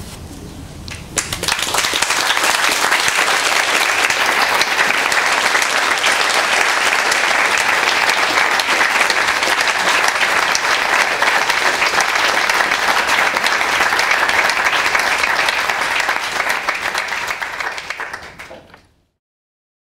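Audience applauding, starting about a second in, holding steady, then fading out near the end.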